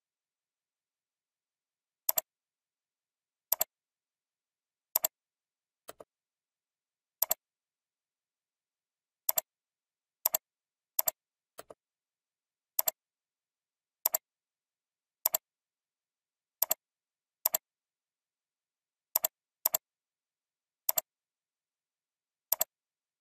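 Computer mouse clicks, each a quick double tick of button press and release, coming irregularly every second or two, two of them fainter, with silence in between.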